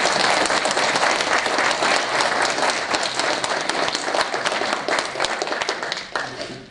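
Audience applauding. The clapping thins out and dies away near the end.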